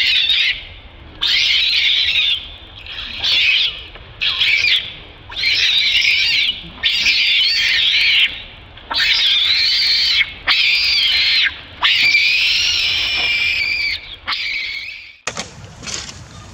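Baby long-tailed macaque crying in distress: about ten loud, high-pitched screaming cries in a row, each half a second to two seconds long with a wavering pitch. The longest cry comes about three-quarters of the way through, and the crying cuts off shortly before the end.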